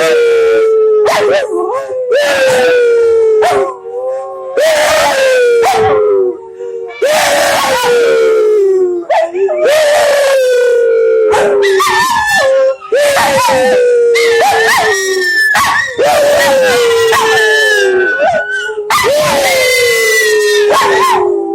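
Several dogs howling together on cue, in long, overlapping howls that slide down in pitch, with short breaks between them.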